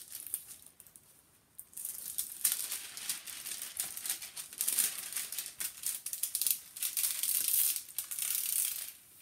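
Clear plastic protective film on a diamond painting canvas crinkling and rustling under hands smoothing out its wrinkles. It is a run of scratchy rustles that starts about two seconds in and goes on almost without a break.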